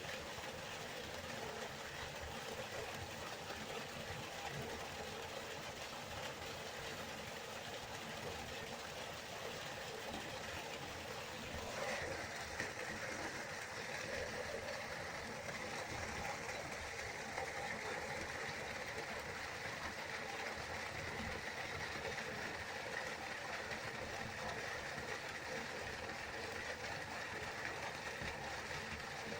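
Waterfall rushing in a steady, unbroken stream of noise; about twelve seconds in, the rush becomes a little brighter and stays so.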